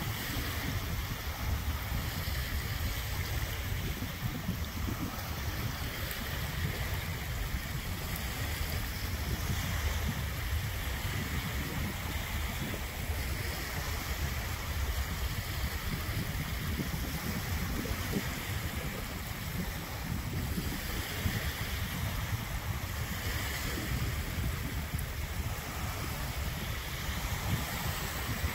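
Small waves lapping and washing up a sandy beach in a steady wash with gentle swells, over a low rumble of wind on the microphone.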